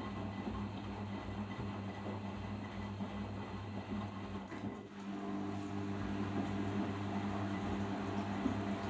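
Arçelik 5083 washing machine humming steadily as its drain pump empties the drum after the final rinse. About five seconds in, a second, higher hum joins and the sound gets a little louder as the machine moves into its 800 rpm final spin.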